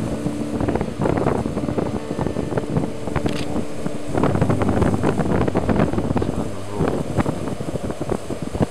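Strong wind buffeting the microphone, rumbling and gusting unevenly, with faint steady tones underneath.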